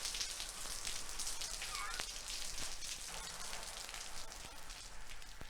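Steady rain falling, a quiet hiss dotted with many small crackling drop ticks, with no music under it.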